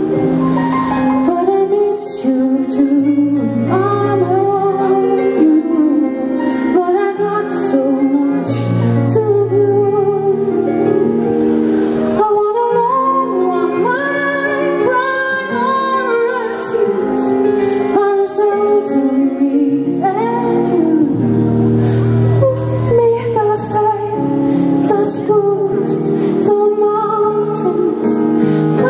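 A woman singing a slow pop song live into a microphone over band accompaniment, with low held bass notes and light cymbal ticks.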